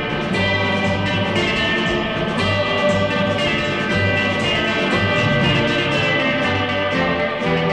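Instrumental background music: sustained notes that change about every second over a low bass line.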